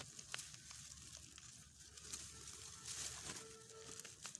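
Faint rustling and scattered small clicks of hands handling the bird trap and its bait.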